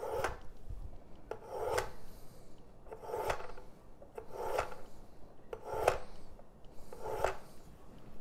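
Kitchen knife blade drawn repeatedly through the ceramic honing discs of a Work Sharp electric kitchen knife sharpener, honing the edge after sharpening: six rasping strokes about one and a third seconds apart, each ending in a sharp tick.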